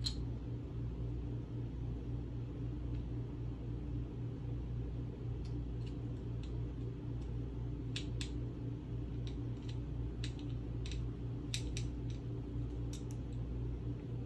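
Small, faint clicks and taps of a plastic hall sensor board and wire leads being handled and seated in the end of a slimrack RV motor, about a dozen of them scattered through the second half. They sit over a steady low mechanical hum, like a running fan.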